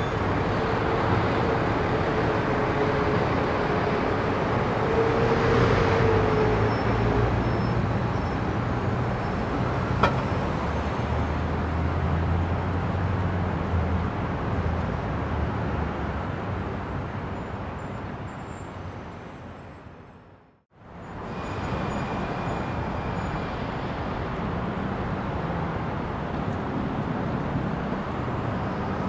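City street traffic: steady noise of passing cars and engines with a low rumble. About twenty seconds in it fades away to silence and fades back in.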